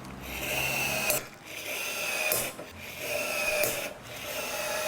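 Rivet tool working through a rivet in repeated rasping strokes, about one a second, each with a steady squeal.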